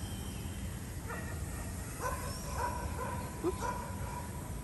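Rottweiler whining: a thin, steady whine from about halfway through, lasting about two seconds, over a constant low background hum.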